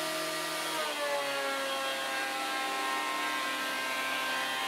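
Planer-thicknesser running with a steady whine; about a second in the pitch drops and holds lower as a board feeds through the cutterhead and loads the motor, then rises again near the end as the board clears.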